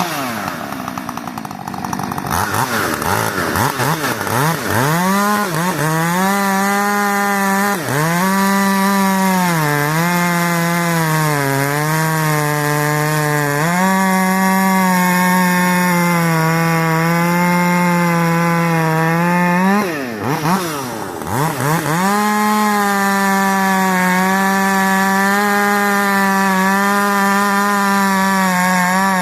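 Rebuilt Husqvarna 562 XP two-stroke chainsaw at full throttle, cutting wood in its first run since the rebuild. The revs waver at first, then hold high with repeated dips in pitch as the chain bites. About 20 s in it drops briefly off throttle, then revs back up.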